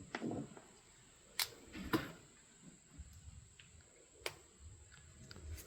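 Four sharp handling clicks and taps spread over several seconds, the loudest two close together about two seconds in, over low fumbling noise.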